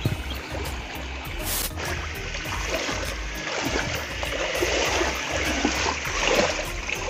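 Shallow stream water running, with irregular splashing as a person wades and gropes through it with hands and a stick.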